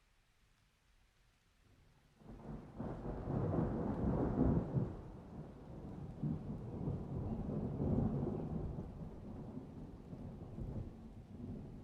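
Thunder: after about two seconds of near quiet, a long low rumble sets in suddenly, swells twice and slowly dies away, with rain underneath.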